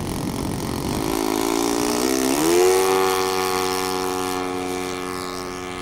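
RC airplane's Saito 56 four-stroke engine throttling up for the takeoff roll. Its pitch steps up about two seconds in and then holds steady at full power, growing fainter as the plane moves away down the runway.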